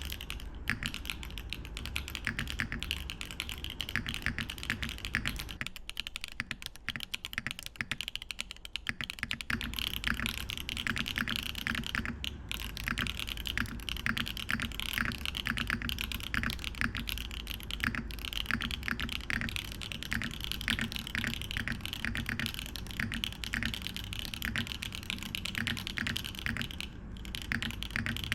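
Continuous fast typing on a Neson Design Norytek70 mechanical keyboard with HMX Hydra tactile switches and GoMaster Winter Breath keycaps: a dense clatter of keystrokes. The typing goes softer and sparser for a few seconds between about six and nine seconds in.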